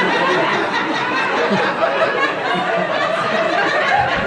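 A small audience laughing and chuckling, many voices overlapping.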